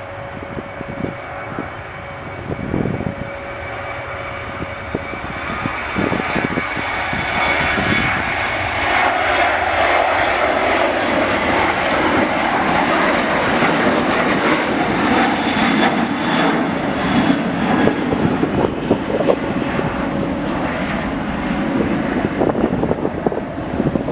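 Jet airliner's engines growing steadily louder over the first dozen seconds, with a thin steady whine at the start, then holding loud. Gusts of wind buffet the microphone near the end.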